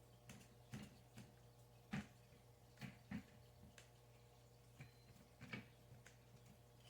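Near silence: faint, irregular clicks and taps over a steady low hum.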